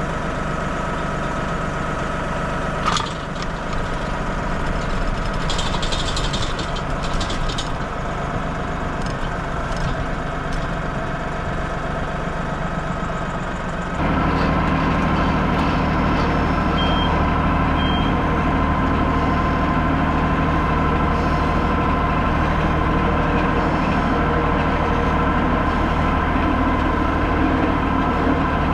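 LS XG3140H compact tractor's diesel engine running steadily while skidding a log. A sharp click comes about three seconds in. About halfway through, the engine sound jumps abruptly louder and steadier, and two short high beeps follow a second apart.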